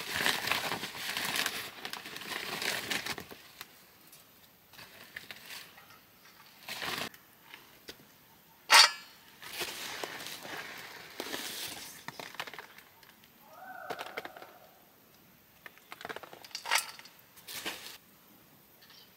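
Intermittent rustling and crinkling handling noises, with one sharp knock about nine seconds in and a brief pitched call near fourteen seconds.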